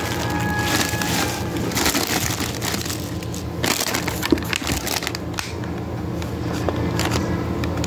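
Plastic produce bags and cling wrap crinkling and rustling as hands rummage through a box of fruit and vegetables, with irregular crackles throughout.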